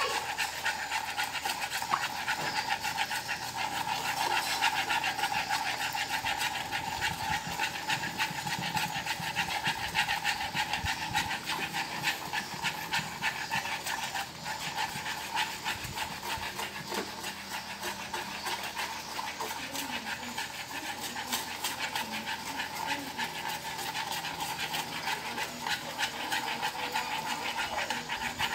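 Sugar caramel bubbling and sizzling steadily in a metal wok over a gas flame, stirred with wooden chopsticks.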